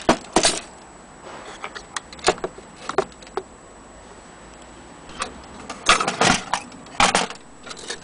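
Metal parts of an antique longcase clock being handled: irregular clinks, knocks and jingling rattles, bunched just after the start and again around six to seven seconds in.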